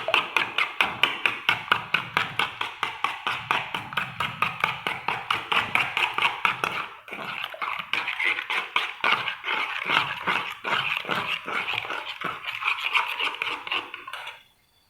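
Mixture being beaten by hand in a bowl: a fast, even run of strokes, about six a second, with a brief pause about halfway, stopping abruptly near the end.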